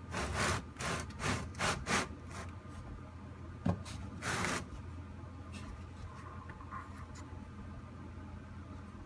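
Several short scraping, rubbing strokes, with a sharp click about three and a half seconds in, from hand work on the transmission's underside; a steady low hum runs beneath.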